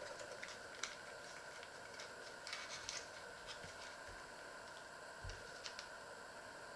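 Faint crinkling and ticking of a small foil-paper packet being unwrapped by hand, with a few soft low thumps against the wooden worktop.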